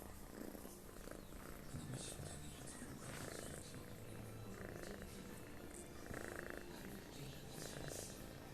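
Domestic cat snoring in its sleep, faint, with a snore on each breath about every second and a half.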